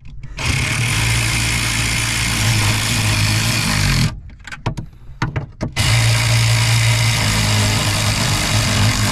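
A handheld power tool's motor runs in two steady stretches of about four seconds each, driving on the nuts that hold the clutch master cylinder to the firewall. A few clicks come in the short gap between the two runs.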